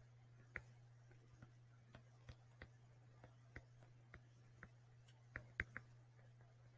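Faint, irregular clicks of a stylus tapping and sliding on a tablet screen as notes are handwritten, about a dozen in all, the loudest a little after five seconds in, over a low steady hum.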